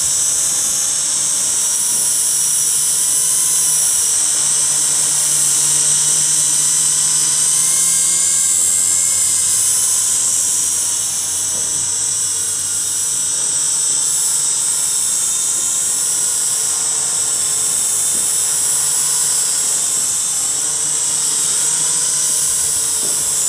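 LBLA S169 mini quadcopter's four motors and propellers whining steadily as it hovers low in altitude-hold mode, the pitch wavering slightly as the motors adjust.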